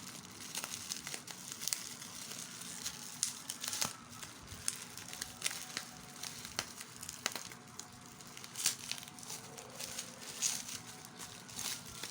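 Bubble wrap crinkling and crackling irregularly as it is pulled and unwrapped by hand.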